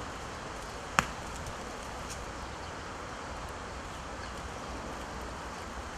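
Steady outdoor background noise with no clear source, broken by a single sharp knock about a second in.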